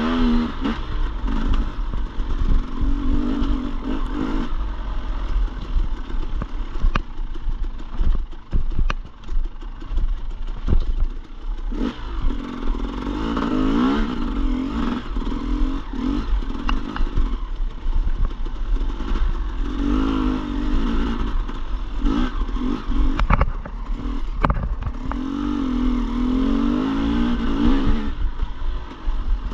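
Dirt bike engine on a trail ride, revving up and falling back every few seconds as the throttle is worked, with scattered knocks and clatter from the bike over rough ground.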